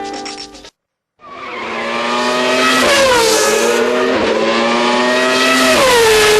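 Brief music cuts off, and after a moment of silence a car engine fades in and runs hard at high revs. Its pitch dips and climbs back a few times.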